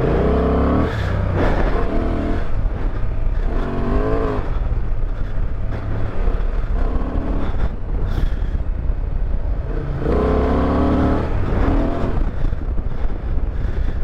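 Honda Transalp 750's 755 cc parallel-twin engine being ridden hard, revving up and easing off several times so its pitch rises and falls in repeated surges, over a steady rumble of wind and road noise.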